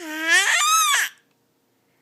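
A baby vocalizing: one high-pitched, cry-like squeal about a second long that rises steeply in pitch and then falls away.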